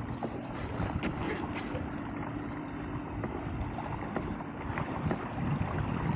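Water washing along the hull of a Hobie pedal kayak under way on calm water, with wind on the microphone and a few light clicks.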